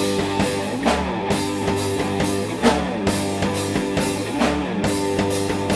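Rock band playing, with guitar, bass and drum kit over a steady beat.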